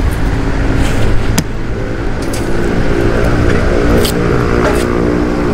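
Kawasaki Ninja 400's parallel-twin engine running at a steady pitch, with a couple of sharp clicks.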